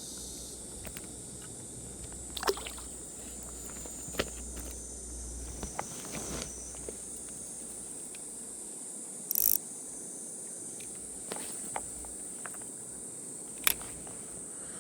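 A steady high-pitched insect chorus, with a few short, sharp splashes and clicks of water scattered through it.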